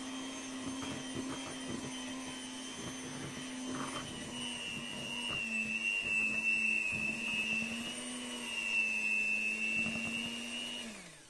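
Electric hand mixer running at low speed, its beaters churning flour into a thick cake batter, with light knocks of the beaters against the bowl. The motor's hum dips slightly in pitch about four seconds in, then winds down and stops near the end.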